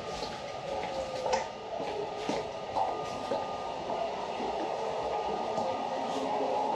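Footsteps clicking on the tiled floor of a train corridor, about one a second, over a steady mechanical hum from the stopped train that grows a little louder toward the end.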